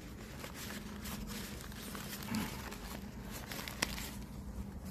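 Fresh banana leaves rustling and crinkling as they are folded and squeezed by hand into a bundle, with a single sharp click near the end.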